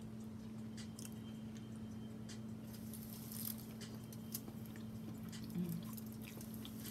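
Faint wet squishing and clicking of a person chewing sauce-covered seafood, with short soft smacks here and there over a steady low hum.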